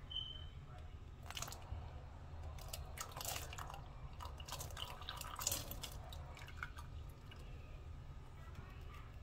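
Condensed milk and canned sweet corn poured from opened tin cans into coconut milk in a saucepan: a scattered run of small drips, splashes and light clinks, over a low steady hum.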